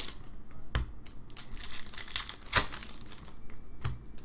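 Foil wrapper of a Topps Star Wars Chrome trading card pack crinkling as it is handled and opened by hand, with a few sharp crackles, the loudest about two and a half seconds in.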